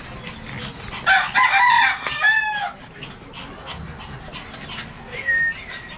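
A rooster crowing once, about a second in, for under two seconds and ending on a falling note. A brief high call follows near the end.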